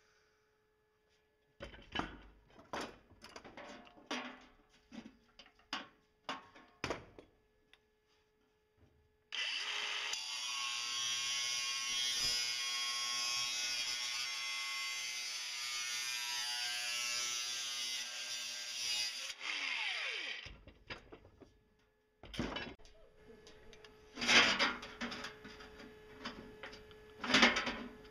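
Metal clanks and rattles as thin sheet metal is handled. Then a DeWalt angle grinder with a cut-off disc runs for about ten seconds, cutting through the sheet metal, and spins down with a falling whine. Near the end, hand tin snips crunch through the metal in irregular cuts.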